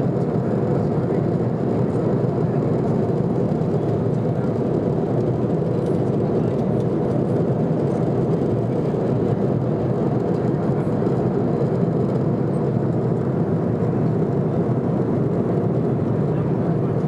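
Jet airliner cabin noise in flight: an even, deep rushing drone of engines and airflow, steady throughout with no changes.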